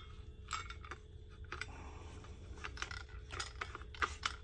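Survival shovel's blade being screwed onto its handle on a reverse thread: irregular light metallic clicks and ticks as the parts are twisted together.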